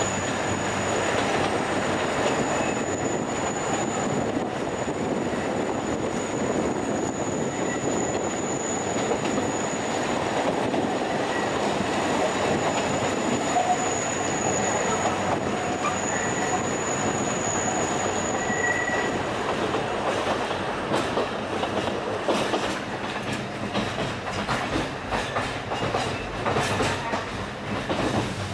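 Alishan Forest Railway narrow-gauge train running, heard from on board: a steady rumble of wheels on rail with a thin, high wheel squeal coming and going. Over the last third the squeal stops and the clicks of wheels over rail joints stand out more.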